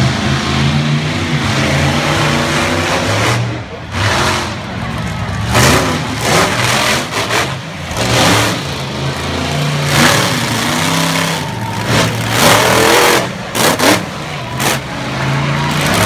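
Black Stallion monster truck's engine revving loudly in repeated throttle bursts, its pitch stepping up and down, as the truck drives past at close range.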